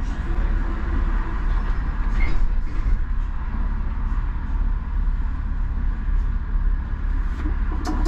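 Škoda 39T tram running along the track, heard from on board: a steady low rumble of wheels and drive, with a few sharp clicks near the end.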